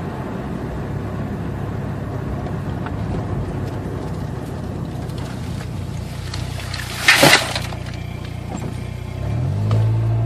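Car running on the road, heard from inside the cabin: steady engine and road noise while coasting, a brief loud knock or rattle about seven seconds in, then the engine note climbing as the car accelerates near the end.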